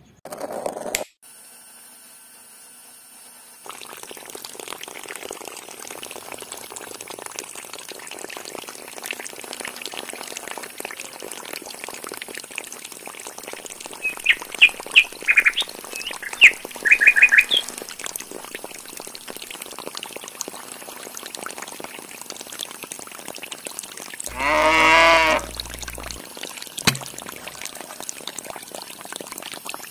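Water pouring steadily from the outlet pipe of a battery-powered mini water pump. A run of short bird chirps comes about halfway through, and a single long animal call near the end.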